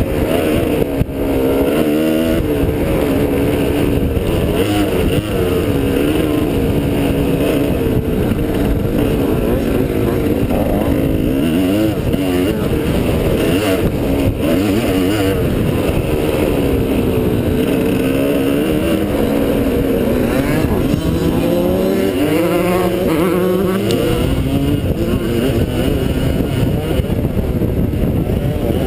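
Dirt bike engine heard up close from the rider's own bike, running continuously with its pitch rising and falling as the throttle is worked, with a few quick revs in the later part.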